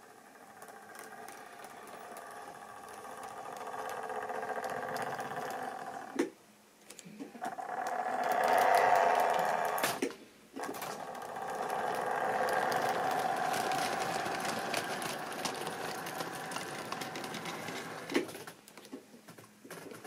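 Electric motor and gears of a model diesel locomotive, a Class 20 in Railfreight grey, whirring as it runs along the track with a few sharp clicks. It grows louder, is loudest as it passes close about halfway through, and cuts out briefly twice.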